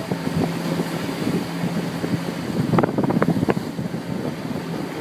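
Wind buffeting the microphone in a dense, rumbling roar. A rapid cluster of sharp cracks or knocks comes about three seconds in.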